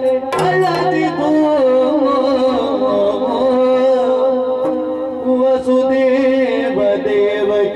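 Yakshagana stage music: a male voice sings a verse over a steady held drone, with a few drum strokes about half a second in.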